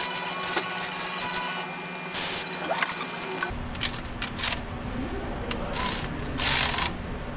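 Ratchet work on the bolts of a new water pump on a 5.7 HEMI: short clicks and metal-on-metal tool noise over a steady hum. About halfway through the sound changes suddenly, and several short rasping bursts follow as the bolts are run down.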